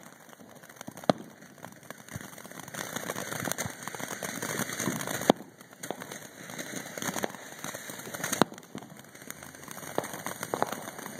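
'Never Ending Fountain' ground firework spraying sparks with a continuous crackling hiss, broken by several sharp pops, the loudest about a second in, around five seconds and around eight seconds.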